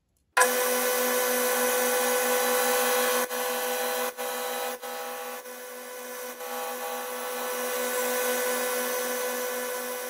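Boxford metal lathe running with a parting tool cutting into a spinning aluminium piston casting to part it off: a steady whine over a rough cutting hiss, with a few sharp clicks in the middle.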